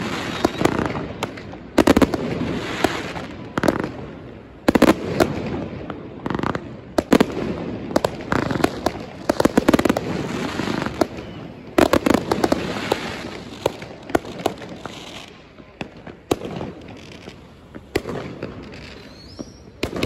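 Aerial fireworks display going off overhead: repeated clusters of sharp bangs and rapid crackles every second or two, over a constant rumble of more distant bursts. The bangs come less often in the last few seconds.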